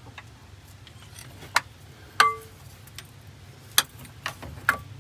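Four sharp metal clinks of tools on the bus's brake parts, spaced about a second apart, two of them ringing briefly, over a steady low hum.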